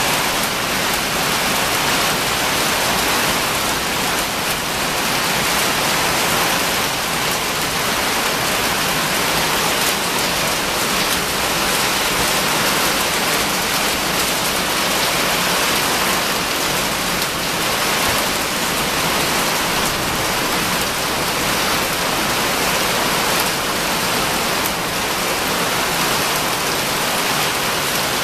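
Rain mixed with small hail falling steadily on the ground and pavers, an even, unbroken wash of noise.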